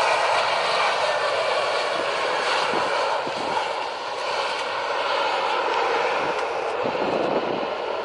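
Airbus A320 airliner's jet engines heard through touchdown and rollout: a steady broad rush that eases slightly about halfway and then builds again.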